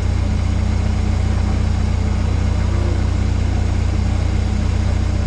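Peugeot 306 GTi-6's 2.0-litre four-cylinder engine idling with a steady, even low hum.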